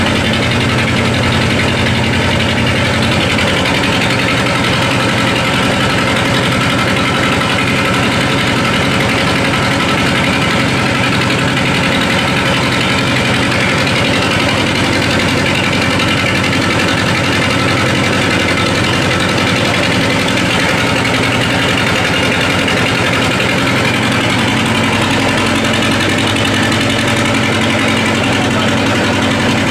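A 'Dong-Dong' 2105A two-cylinder diesel engine running steadily at working speed, driving a Heller Seiyu rice huller and polisher while rice is being milled.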